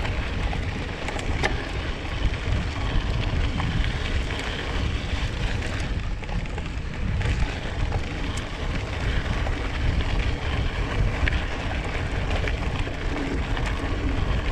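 Wind buffeting the action camera's microphone on a moving mountain bike, over the steady rumble of knobby tyres rolling on a dirt track, with scattered small ticks and rattles.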